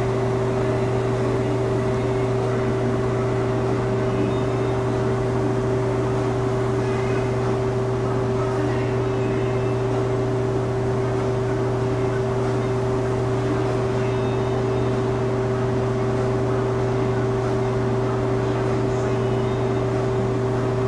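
Steady mechanical drone of spray-booth equipment, a constant low hum with two steady higher tones over an even hiss, unchanging throughout.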